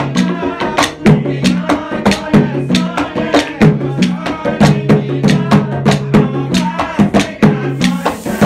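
Southern Iranian folk music played live: double-headed barrel drums beaten in a quick, steady rhythm with wooden hand clappers and an oud. A steady hiss joins near the end.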